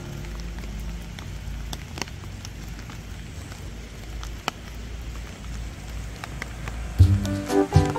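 Rain falling steadily, with scattered drops ticking, over a low rumble. Loud background music comes in near the end.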